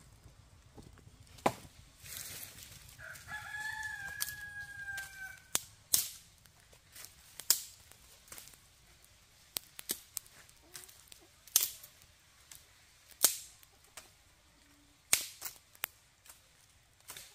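A rooster crows once, a long call starting about three seconds in, among a scattering of sharp knocks or clacks throughout.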